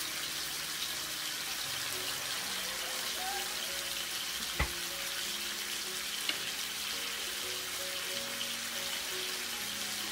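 Daechang (beef large intestine) sizzling steadily on an electric grill pan, over soft background music. A single sharp knock about four and a half seconds in.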